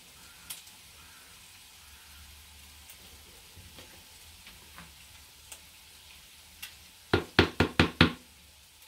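A quick run of about five sharp knocks, each a fraction of a second apart, lasting about a second near the end; before that only faint scattered ticks.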